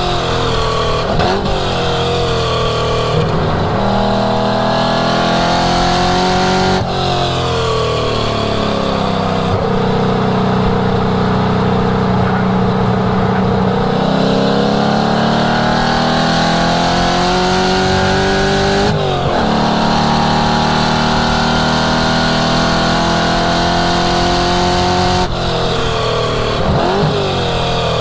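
1967 Ford Mustang's V8 exhaust driven hard on a lap: the revs climb under acceleration and drop sharply at three gear changes. Quick up-and-down rev swings near the start and again near the end come as it slows for corners, with a steadier stretch at part throttle in the middle.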